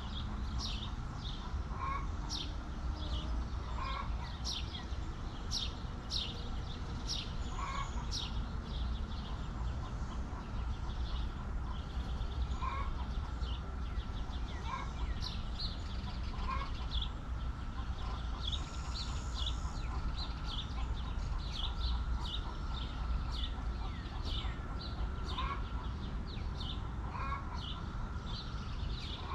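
Chickens clucking softly every second or two, amid a constant stream of quick, high, falling chirps, over a steady low rumble.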